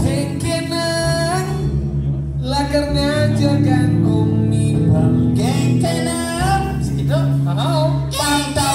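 A song sung over band accompaniment, with a sustained bass line under the melody.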